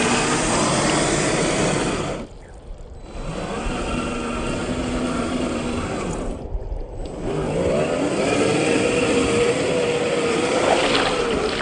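1/10-scale RC crawler's 27-turn brushed electric motor and geared drivetrain whining under throttle. The whine drops out briefly twice, at about two seconds and again at about six and a half seconds, then climbs in pitch as it speeds up again.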